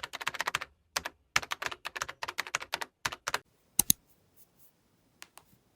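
Typing on a computer keyboard: a quick run of keystrokes for about three and a half seconds, then a louder double click, and two faint clicks near the end.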